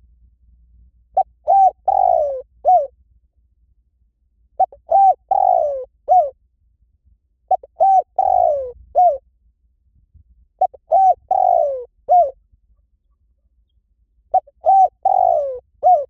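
Spotted dove cooing: five repeated phrases, each a quick coo, a pair of short coos, a long falling coo and a short final coo, about every three and a half seconds.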